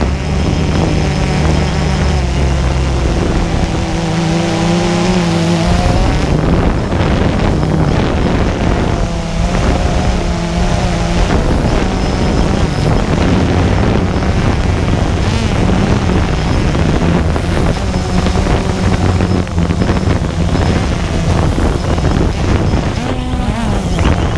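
Quadcopter drone's motors and propellers whirring steadily, with the pitch wavering up and down as the throttle changes during the descent.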